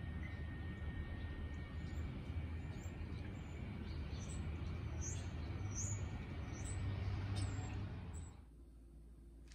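Outdoor street ambience: a steady low rumble of distant traffic, with a few short, high bird chirps in the middle. The outdoor sound cuts off abruptly near the end, leaving quiet indoor room tone.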